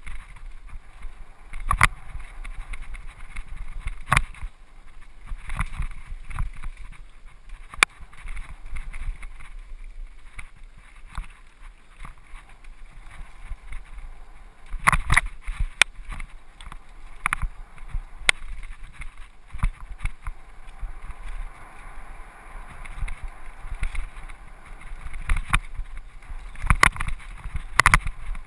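Mountain bike riding fast over a dirt forest singletrack: wind rushing over the microphone and tyres rumbling on the trail, broken by sharp knocks and rattles as the bike hits roots and bumps, heaviest about halfway through and again near the end.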